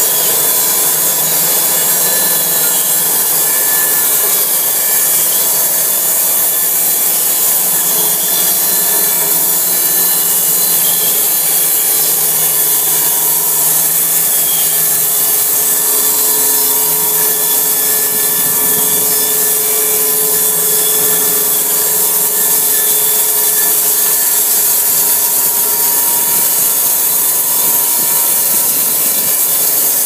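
Electric R 100 mobile band sawmill's bandsaw blade cutting lengthwise through a log as the saw head feeds along it: a loud, steady sawing noise with a few faint steady tones running through it.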